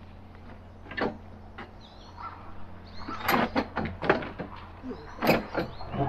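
Folding table's metal leg frames being folded down against its plastic top: separate knocks and clacks, one about a second in and a quick cluster from the middle to near the end.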